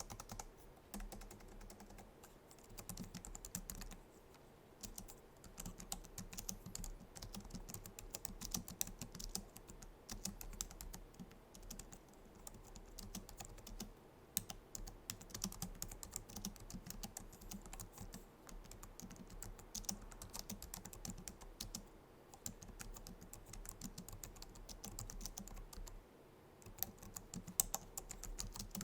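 Typing on a Logitech MX Keys wireless keyboard: quick runs of soft, low-profile scissor-switch key clicks, broken by short pauses.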